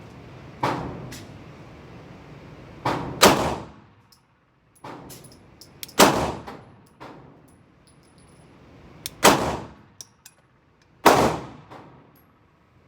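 Glock 45 9mm pistol firing unhurried single shots, about six of them spaced one to three seconds apart, two of them close together about three seconds in. Each shot has a short echoing tail.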